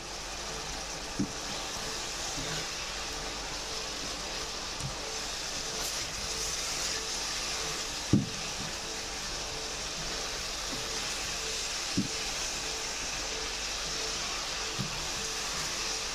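Beef and sliced onions sizzling in a frying pan, a steady frying hiss, with four short knocks of the stirring utensil against the pan, the loudest about eight seconds in.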